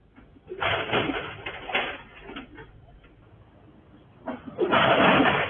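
Backhoe loader's front bucket scraping along the asphalt road in two loud stretches, the first lasting about two seconds and the second starting about four seconds in. The bucket is being dragged on the ground to slow the machine after its brakes failed.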